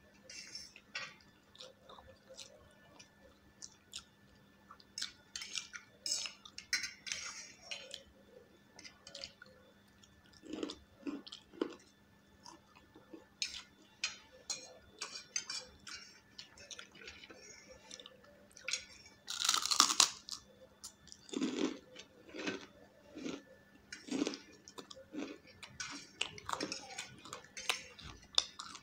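Close-miked eating sounds: wet chewing and lip smacks over Maggi noodles, with steel forks clinking and scraping on steel plates. About twenty seconds in comes a longer, louder noodle slurp, followed by a run of duller chewing knocks.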